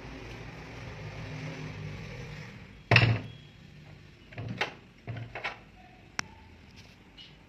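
A heavy slam of something being shut, almost certainly the house gate, about three seconds in. A few lighter knocks follow, then a single sharp click.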